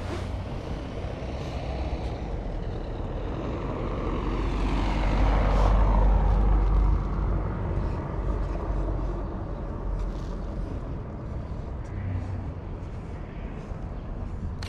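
A motor vehicle passing by: a rumble that swells to its loudest about five to seven seconds in, its pitch dropping as it goes by, then fades away.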